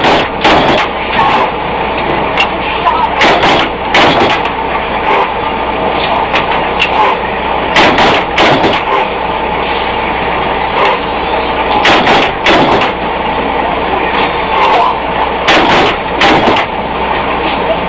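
Loud, steady industrial machinery noise broken by irregular sharp metal clanks and bangs, several of them in pairs a fraction of a second apart, as on a forging line.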